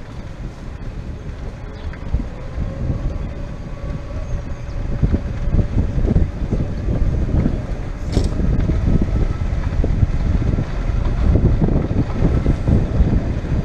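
Wind buffeting the microphone on a moving golf cart, over the low rumble of the cart rolling along. The rumble grows louder about halfway through.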